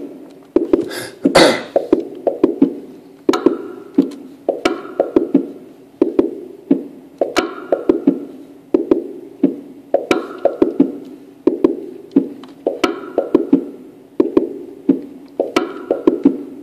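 Yamaha Tenori-on playing a looping sequence of short, clicky percussive notes that repeats over and over. A short hiss sounds about a second in.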